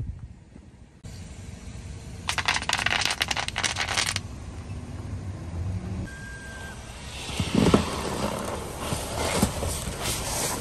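A car tyre crushing a small plastic toy with a fast crackling crunch lasting about two seconds. Then the tyre rolls over a sheet of bubble wrap, the bubbles popping in scattered sharp cracks, the loudest about two-thirds of the way through, over the car's low rumble.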